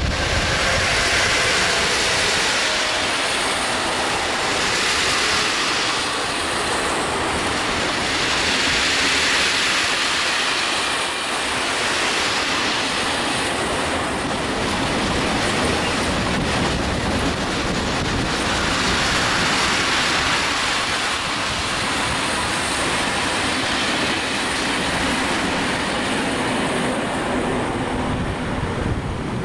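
Freight train of open wagons loaded with scrap metal, hauled by a Siemens Vectron electric locomotive, rolling past without stopping: a steady noise of steel wheels running on the rails that swells and eases every few seconds as the wagons go by.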